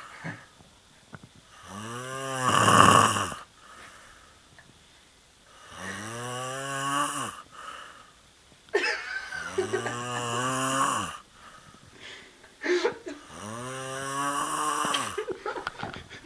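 The so-called strange sounds in the sky: long, deep moaning tones, four of them, each about two seconds long, bending up and then back down in pitch, repeating every three to four seconds.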